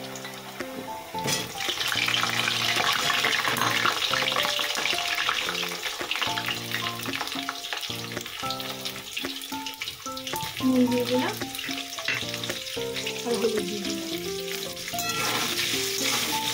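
Potato pieces deep-frying in hot oil in an aluminium kadai, a steady sizzle that grows louder about a second and a half in. Soft background music plays throughout.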